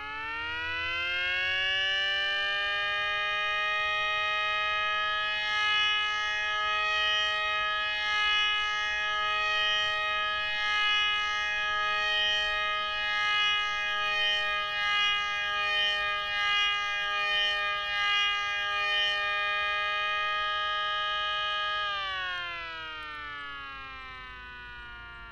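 3D-printed miniature 500DHTT-style rotating siren, driven by a small 5-volt motor run at about 7.5 volts, winding up to pitch over about two seconds. It then holds a steady multi-toned wail whose loudness swells and fades about once a second as the horn turns, and near the end it winds down, the pitch falling.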